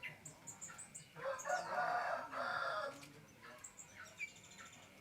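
A rooster crows once, a call of almost two seconds starting about a second in, among short high chirps of small birds.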